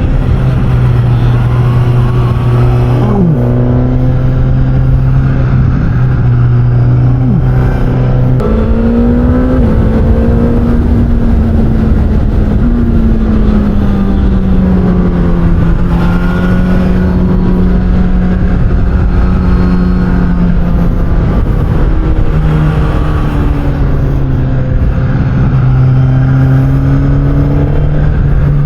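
2023 Suzuki GSX-S1000's inline-four engine breathing through an SC-Project aftermarket exhaust, heard on board while riding, with wind noise. The engine note holds steady, jumps higher about eight seconds in, slowly falls away, and drops back lower near the end.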